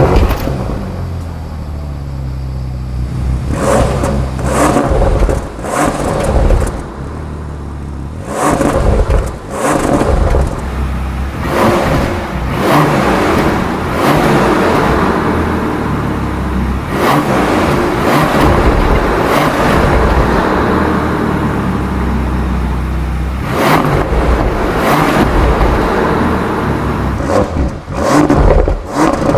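A 2022 Bentley Flying Spur's engine starts, settles to a low idle and is blipped again and again, with short revs between stretches of idle.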